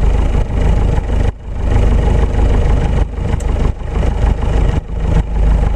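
Engine and propeller of a single-engine Piper light aircraft running, heard as a loud steady drone with a heavy low rumble, dipping briefly and suddenly a few times.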